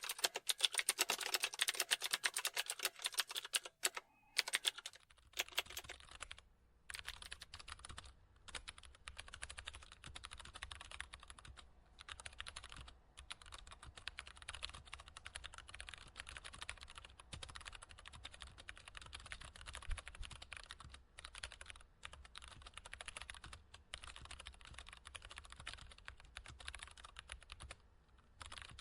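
Typing on a computer keyboard, a quick run of key clicks. For the first few seconds the typing is loud and dense; about five seconds in it changes to softer typing over a low hum, with short pauses between bursts.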